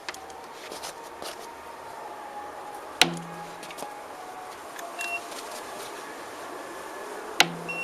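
Yamaha TMAX 530 rear drive belt struck twice, about four seconds apart: each strike is a sharp snap followed by a brief low hum as the belt vibrates. A sonic belt tension gauge gives short high beeps as it reads the belt's vibration frequency to measure its tension.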